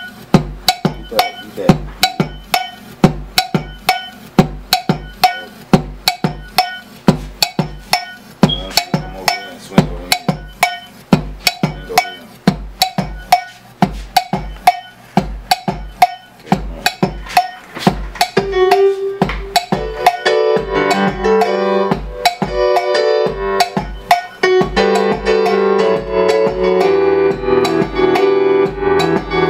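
A programmed drum beat playing back from a Boss SP-505 sampler, a steady pattern of kick and percussion hits. About two-thirds of the way in, a Yamaha YPT-210 keyboard comes in with held chords over the beat, and the music gets louder and fuller.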